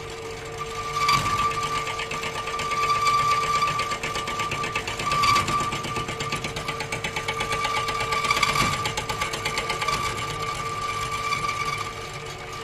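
Homemade lathe driven by a washing-machine motor, running with its tool bit cutting down the crown of an aluminium piston: a steady whine under a fast rattle of tool chatter, swelling louder several times.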